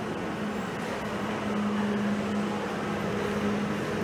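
Steady mechanical drone of an airport terminal, with a low hum under a broad noise, growing a little louder after the first second or so.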